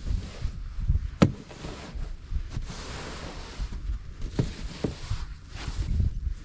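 Wind gusting across the microphone in an uneven low rumble, with a few sharp knocks or crunches, the loudest about a second in.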